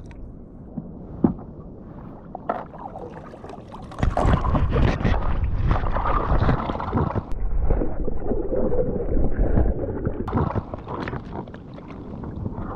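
Water sloshing and handling noise on a fishing kayak while live baits are handled in a bait bag, with a few sharp knocks in the first seconds. It turns loud and rough from about four seconds in and eases off after about ten seconds.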